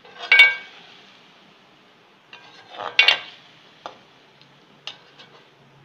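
Slotted metal spatula scraping and clanking against a metal cooking pot while stirring wet chicken and tomatoes: two loud scrapes, one near the start and one about three seconds in, with lighter taps of metal on metal between and after.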